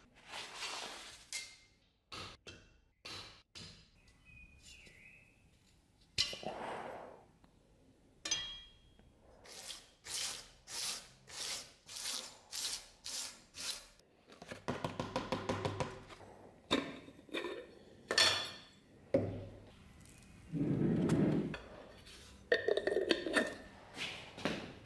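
Scrubbing strokes of an abrasive pad along a rusty steel sword blade, including an even run of nearly two strokes a second, mixed with metal clinks and knocks as sword parts are handled.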